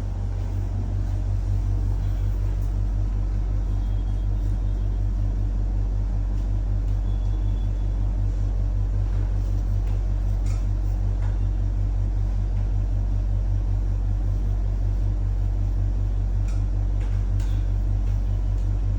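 A steady low mechanical hum with a fast, even pulse, rising slightly about a second in, with a few faint ticks over it.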